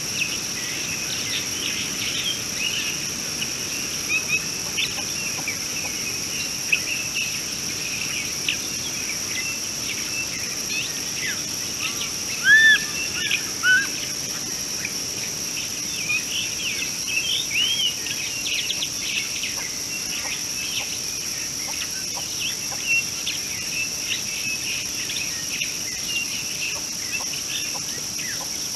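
Steady high-pitched insect drone with many short bird chirps and calls over it. A few louder, lower bird calls come about halfway through.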